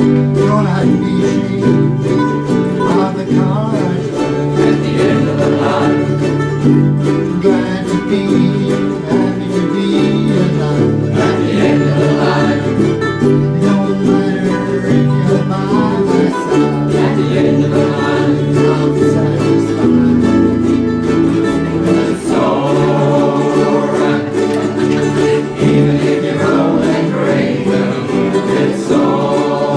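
Ukuleles strummed together in a steady rhythm, with voices singing along.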